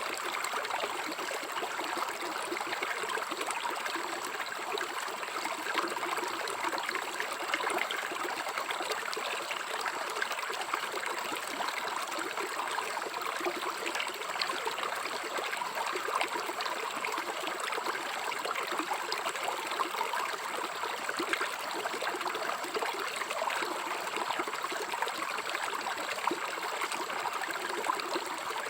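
River water flowing and trickling over stones, a steady, even rush.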